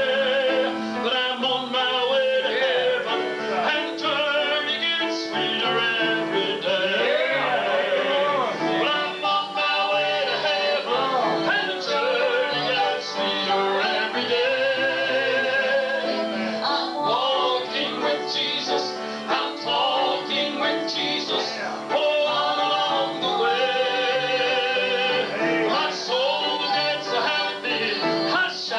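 Southern gospel group singing live with piano accompaniment, a man leading on a hand-held microphone and a woman's voice with him; the voices carry a wide vibrato.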